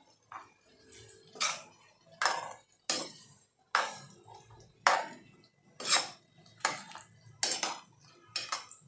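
Steel ladle scraping and knocking against a nonstick kadai while chopped bottle gourd in a watery masala is stirred, about one stroke a second.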